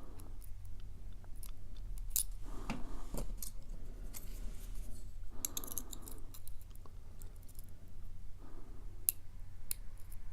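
Lock pick and tension wrench working in a padlock's keyway: scattered light metallic clicks and scrapes as the pins are probed, with no clear opening, since the pins will not set. A steady low hum runs underneath.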